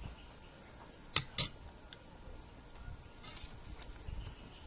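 Hand-eating of star apple pulp: two sharp clicks about a second in, then a few softer clicks and rustles.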